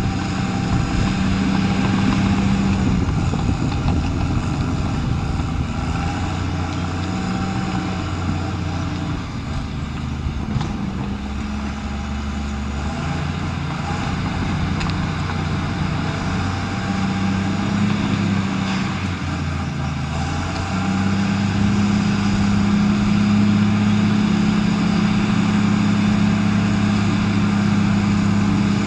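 Caterpillar D5N LGP crawler dozer's six-cylinder diesel engine running continuously, its pitch shifting up and down several times as the load changes, then holding steady and a little louder for the last several seconds.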